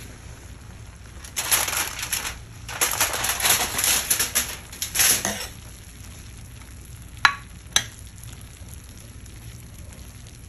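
Aluminium foil crinkling in bursts for about four seconds as it is peeled off a glass baking dish, then two sharp clicks of a fork against the glass dish.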